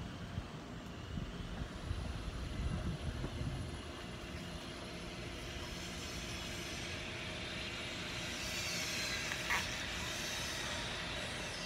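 Outdoor ambience: wind rumbling on the microphone for the first few seconds, then a distant engine passing, its hiss swelling to a peak about nine seconds in and easing off, with a brief click at the peak.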